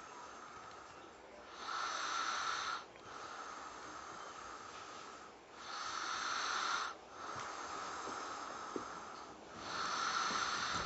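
A sleeping person snoring: three noisy snores on the in-breath, each about a second and a half long and roughly four seconds apart, with quieter breathing between.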